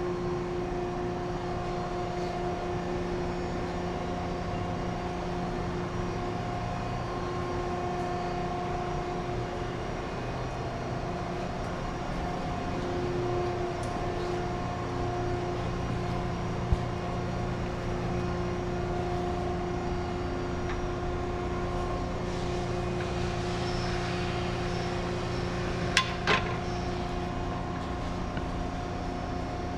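A steady machine hum holding several fixed pitches, with one sharp tap about halfway through and two quick taps close together near the end.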